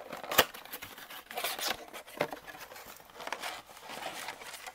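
Packaging of a trading-card blaster box crinkling and tearing as it is handled and opened, with a sharp tap about half a second in and scattered smaller clicks.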